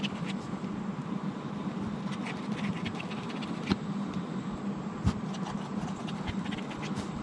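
Marker stylus scratching and tapping on the reMarkable 2 tablet's textured e-ink screen in short strokes, with a few sharper taps, over a steady low hum.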